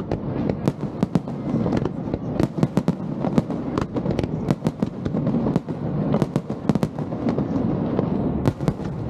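Aerial fireworks bursting in quick, irregular succession: many sharp bangs and pops every second over a steady low rumble.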